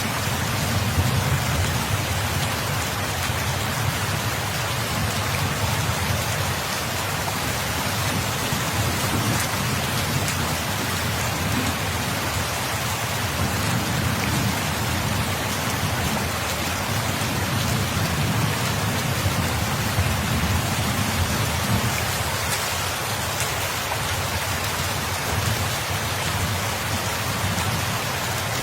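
Steady rain falling, an even dense hiss, with a low rumble underneath that swells and eases.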